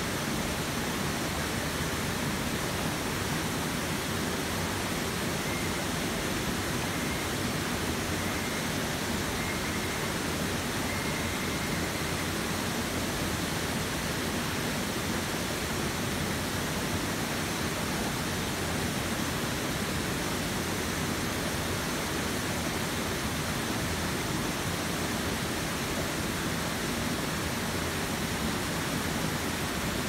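A forest waterfall and the shallow, rocky stream below it, running as a steady, even rush of water without a break.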